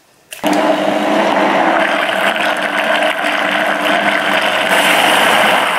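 Countertop blender with a glass jar blending a liquid mixture of milk, cream and chocolate-hazelnut spread: the motor switches on about half a second in and runs steadily at full speed.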